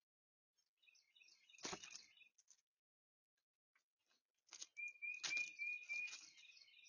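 Small birds chirping in two spells, with a quick series of even whistled notes about five seconds in. Two soft thumps sound within the chirping, one just under two seconds in and one a little after five seconds.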